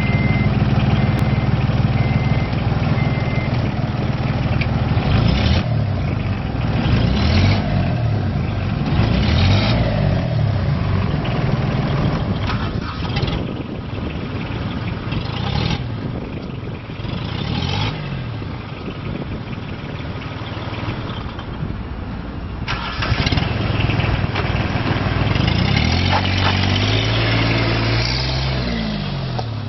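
2011 Polaris Ranger Diesel side-by-side's diesel engine running while the vehicle is driven, revving up and dropping back several times. A repeating high beep sounds in the first few seconds.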